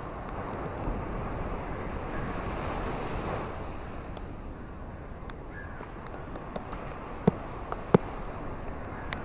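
Steady rain falling, with a rushing swell over the first three seconds or so, then scattered close drops ticking; two sharper drops land about seven and eight seconds in.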